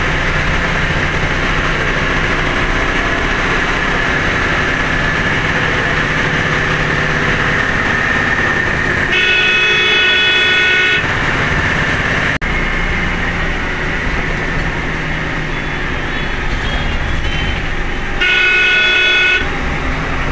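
A bus's engine and road noise heard from inside while driving, with two horn blasts: one lasting about two seconds around nine seconds in, and a shorter one near the end.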